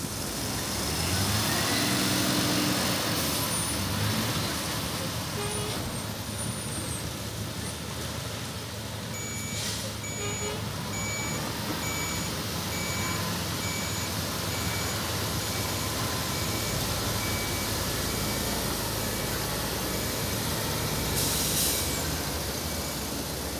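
Diesel engines of heavy earthmoving machinery, a motor grader among them, working a dirt road cut. An engine revs up in the first few seconds, and from about nine seconds in a reversing alarm beeps at a steady, even pace.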